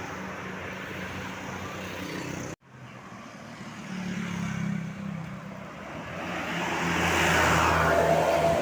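Bus engine running steadily, breaking off suddenly about two and a half seconds in; then a bus draws near, growing louder to its loudest near the end as it passes.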